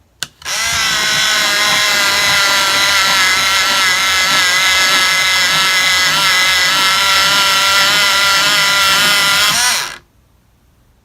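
Electric pencil sharpener running as a pencil is sharpened, its motor whine wavering in pitch as the blades cut. A click comes just before it starts, and it cuts off suddenly near the end.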